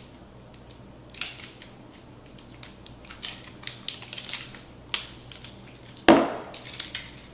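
Small hot-sauce bottle being opened by hand: crackling and clicking as the seal is picked at and the cap worked loose, then a sharp knock about six seconds in.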